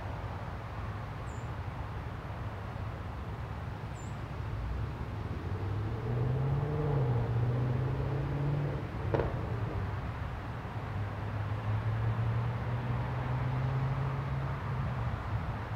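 Low droning hum of a distant motor vehicle's engine, swelling about six seconds in, its pitch rising then falling, then holding steady until near the end. A sharp click about nine seconds in, and two short high chirps in the first four seconds.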